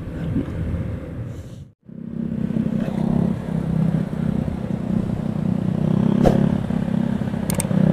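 Motorcycle engine running steadily at cruising speed, with road and wind noise. The sound cuts out briefly about two seconds in, and there is a single short knock about six seconds in.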